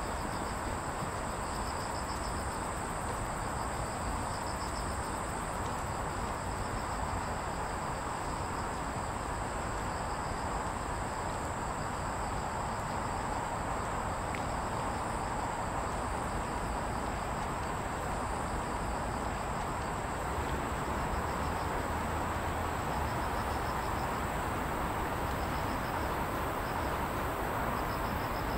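Insects chirping in short, repeated pulsed trills, with a steady high-pitched insect whine, over a steady wash of background noise.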